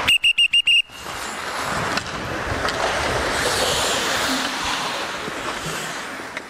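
Coach's whistle blown in five quick short blasts, calling the players in. Then a few seconds of the rushing noise of hockey skates on ice as the players skate in.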